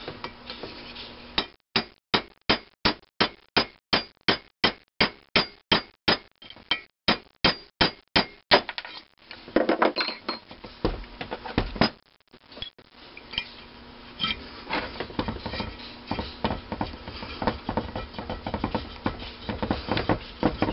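A hammer tapping quickly and evenly on a punch, about three to four blows a second, driving a steel sizing ball through a bronze thin-wall valve guide liner in a cylinder head to size it. The blows stop a little under halfway through, and softer clinks and scrapes of metal parts follow.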